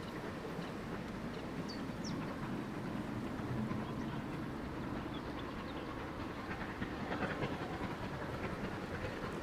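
A steam locomotive working a train in the distance: a steady rumble, with a patch of rail clatter and a slight rise in loudness in the last third.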